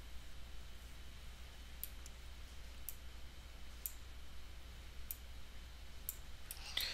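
Computer mouse clicking: about half a dozen separate clicks, roughly one a second, over a low steady electrical hum, with a short rush of noise at the very end.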